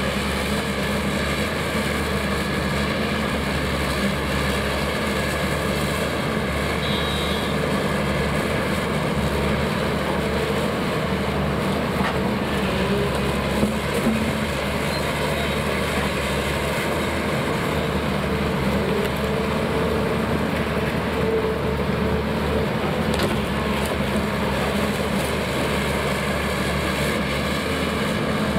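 Diesel engines of excavators and demolition machinery running steadily on a demolition site, a continuous engine hum with a few faint knocks.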